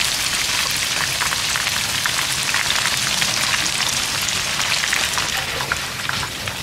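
Hot oil sizzling and crackling steadily as sesame-coated glutinous-rice cheese balls deep-fry, easing slightly near the end.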